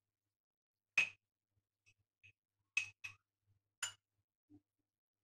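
Metal teaspoon clinking against a small glass jar and a bowl while ground cocoa biscuit crumbs are spooned into the jar: four sharp clinks with a brief glassy ring and a few lighter taps between them.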